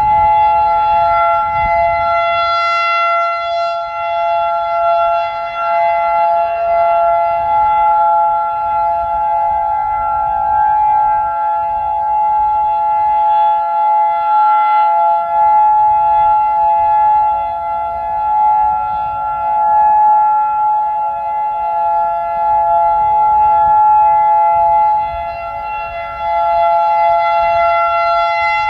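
Outdoor warning sirens sounding a steady alert, led by a nearby Federal Signal 2001-DC dual-tone siren and a Modulator electronic siren holding two steady tones, the level swelling and fading. Wind rumbles on the microphone underneath.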